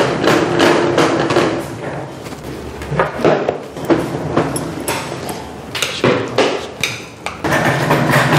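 Irregular knocking and clattering, with sharp knocks coming every second or so.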